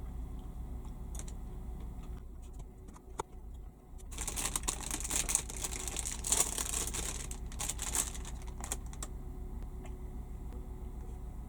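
Crinkling and sharp clicking handling noise for about five seconds, starting about four seconds in, over a steady low hum.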